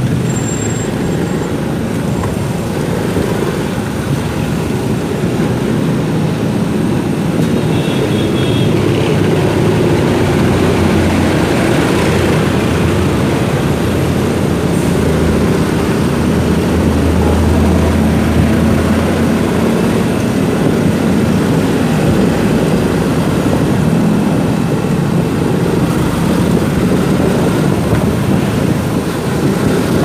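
Motorcycle engine running steadily while riding in slow city traffic, heard from on the bike, with the hum of surrounding traffic and rushing air; the engine's low drone swells for a few seconds past the middle, then settles.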